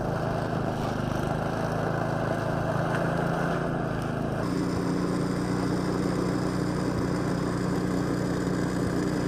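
Steady low engine hum of a running vehicle, with a noisy rushing layer on top; the sound changes abruptly about four and a half seconds in, when the hum shifts slightly and the rush drops.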